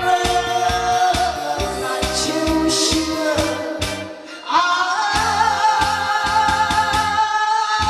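A woman singing into a microphone over a karaoke backing track with a steady beat. About four seconds in she breaks off briefly, then comes back on a high held note with vibrato.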